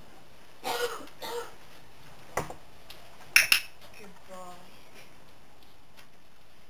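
A training clicker clicked a little over three seconds in: one sharp press-and-release double click. In clicker training, the click marks the horse's correct behaviour, and a food reward follows.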